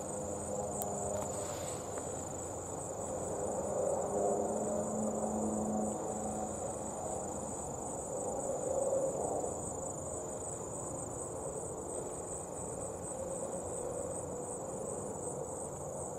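A steady, high-pitched chorus of field insects trilling without a break, over a faint low background rumble.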